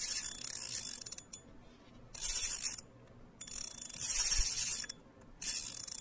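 Logo intro sound effect: four bursts of high, hissing, rasping noise with short gaps between them.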